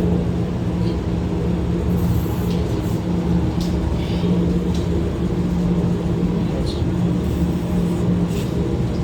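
Steady low drone of a shop air filtration unit running, with a few faint clicks from handling parts.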